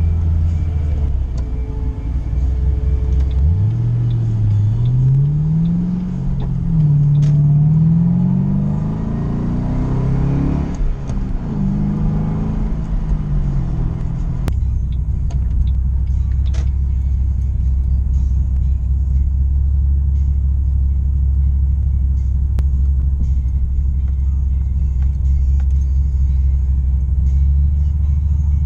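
Ford Mustang engine pulling away: its note climbs in pitch in stages through the gears, drops back after about ten seconds, then settles into a steady low drone.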